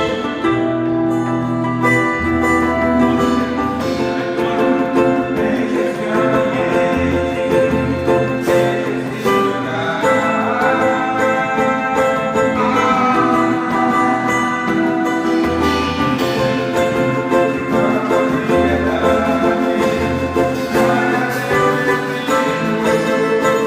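Instrumental music: plucked guitar or banjo over a sustained bass line and held string notes.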